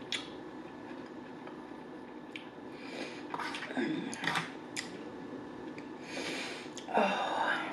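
Plastic fork clicking and scraping against a plastic takeout container as food is picked up, with chewing between. There are scattered short clicks, and a louder scrape near the end.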